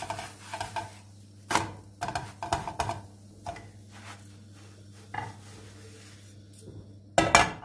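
Knocks and scrapes of a nonstick frying pan being handled as a cooked flatbread is slid from it onto a plate, with the loudest clatter near the end. A steady low hum runs underneath.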